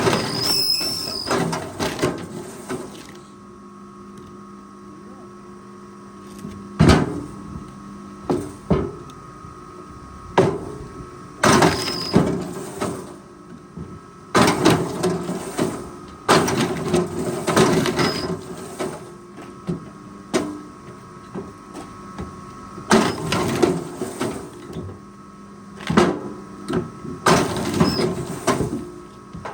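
Heavy forestry machine at work: a steady engine hum runs under repeated, irregular bursts of clattering and sharp knocks from the machine handling timber.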